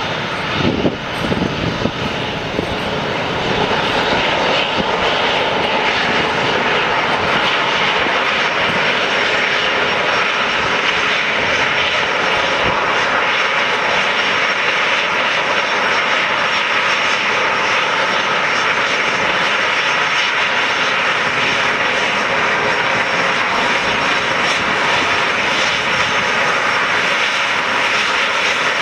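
A Boeing 737-300's twin CFM56-3 turbofan engines running at taxi power as the airliner taxis toward the listener: a steady jet rush with a faint high whine over it. There is some irregular low rumbling in the first few seconds.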